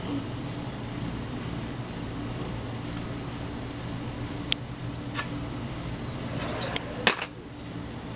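Steady low outdoor hum, with a few sharp clicks scattered through, the loudest about seven seconds in.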